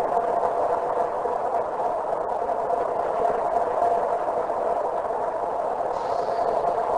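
A steady mechanical drone with a constant hum, even in level and unchanging.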